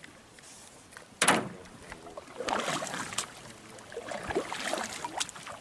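Canoe paddles dipping and pulling through river water in splashing, swishing strokes, with one sharp knock about a second in.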